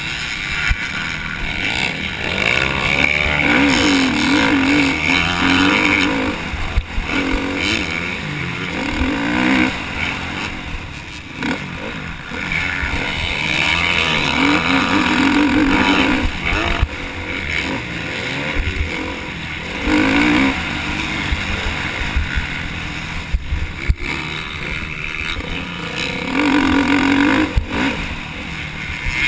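KTM motocross bike's engine at race pace, revving up and dropping off again and again as the rider accelerates, shifts and backs off. Heard from a helmet-mounted camera, with wind rumble on the microphone.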